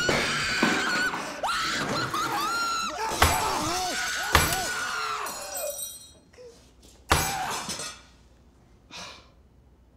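Several people screaming and shrieking in panic for about six seconds, broken by sharp whacks and clatter on a dinner table. One last hard whack comes about seven seconds in.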